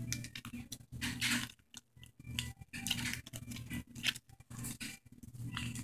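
Plastic sauce packet crinkling in the hands as it is squeezed and worked, in a run of irregular crackles.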